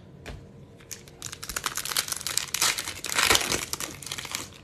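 Foil wrapper of a 2022 Bowman baseball card pack being torn and peeled open, a dense crinkling that starts about a second in and is loudest around the three-second mark.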